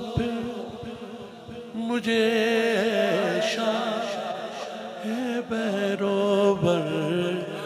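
A man's voice chanting a Punjabi devotional naat unaccompanied into a microphone, in long, wavering held notes.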